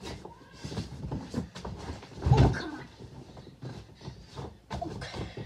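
A child clambering about on an inflated vinyl air mattress while wrapped in a blanket: irregular rustles and bumps, with one heavy thud about two and a half seconds in, joined by a short vocal sound.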